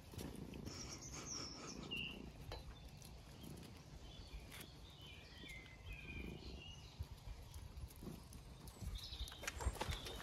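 Puppies and a cat play-wrestling on flagstones: soft scuffling, pattering paws and small knocks, getting louder near the end, with a few faint high chirps now and then.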